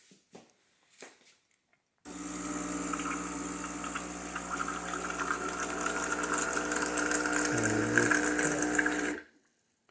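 Breville espresso machine's pump running with a steady hum as it pushes hot water through, with water hissing out. It starts suddenly about two seconds in and cuts off about seven seconds later. The water flowing shows that the clog is cleared and the machine is working.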